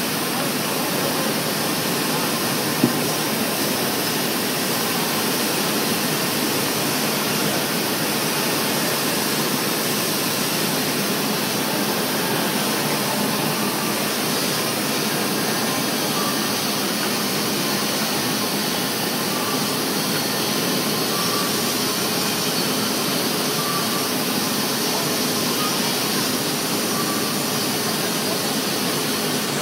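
Steady, loud roar of a steel foundry pouring floor while molten steel is bottom-poured from a ladle into moulds, with flames flaring around the pour. A single sharp click about three seconds in.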